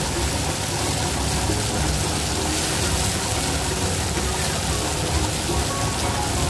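Masala frying in oil in an aluminium kadai, a steady rain-like sizzle, as shredded cabbage is tipped in; soft background music plays underneath.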